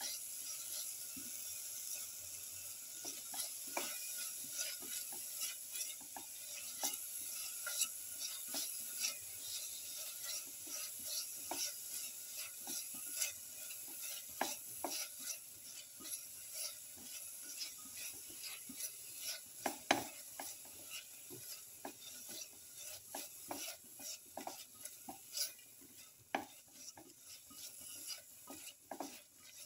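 Tomato pieces sizzling in hot oil in a steel pot while a spatula stirs and crushes them, scraping and tapping against the pot bottom many times.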